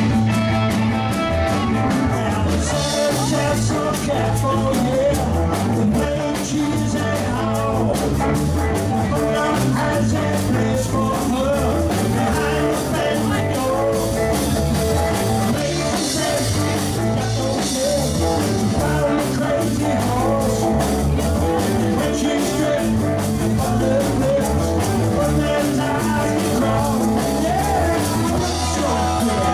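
Live band playing a rock-and-roll number: guitar, bass and drums at a steady beat.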